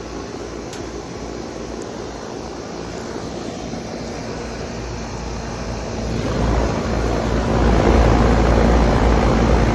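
New outdoor air-conditioner unit starting up, its steady running noise and low hum growing louder about six seconds in.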